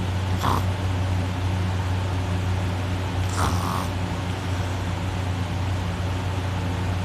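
A person snoring with the mouth held open and the nose pinched shut: two rough snoring breaths, about three seconds apart, over a steady low hum. The snoring comes from the soft palate vibrating.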